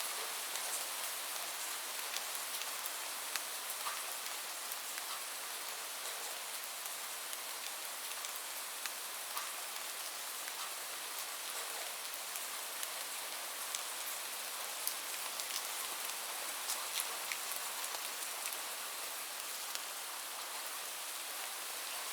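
Steady heavy rain falling, an even hiss with scattered sharper drop impacts.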